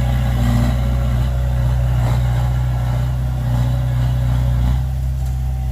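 Heavy diesel engine of a dump truck or bulldozer running steadily at an even pitch.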